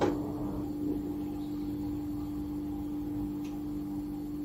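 A steady low hum with one or two faint ticks: background room tone.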